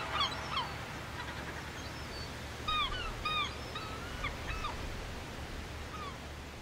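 A series of short chirping animal calls, with a louder pair about three seconds in, over a low steady rumble that slowly fades.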